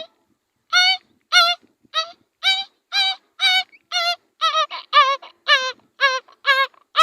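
A man imitating a newborn puppy whimpering to its mother for milk: a run of about a dozen short, high, quavering whines, roughly two a second, dropping slightly in pitch in the second half.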